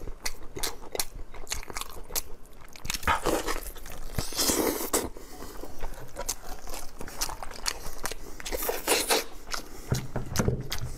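Close-miked wet chewing and lip-smacking of a person eating sauce-glazed bone-in beef ribs, with many short sharp smacks and a few longer squelching bites.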